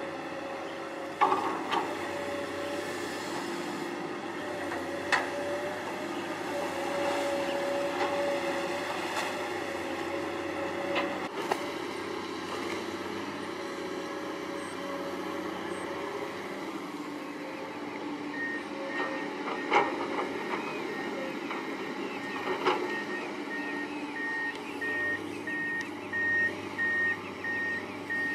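Long-reach excavator's diesel engine running steadily, with a few sharp knocks now and then. About two-thirds of the way through, the machine's warning beeper starts, one steady-pitched beep a little more than once a second.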